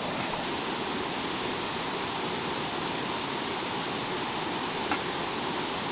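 River water flowing steadily, with a single sharp click about five seconds in.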